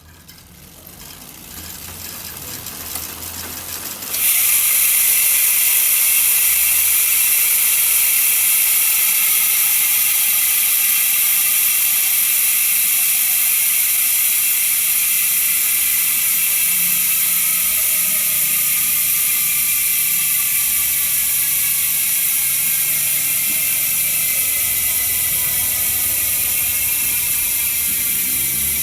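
Sagmit M120 bicycle rear hub with 6 pawls freewheeling. Its ratcheting clicks grow louder over the first four seconds, then turn suddenly into a loud, steady, high buzz that slowly fades as the wheel coasts.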